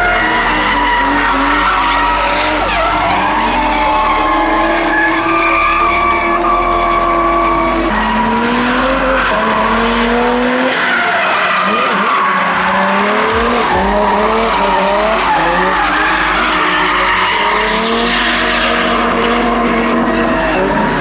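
BMW drift cars sliding through corners, engines held at high revs that rise and fall with the throttle, over tyre squeal and skidding.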